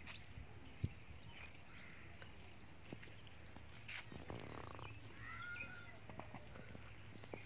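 Faint scattered bird chirps and animal calls over a low steady rumble, with one longer arching call about five seconds in and a few sharp clicks.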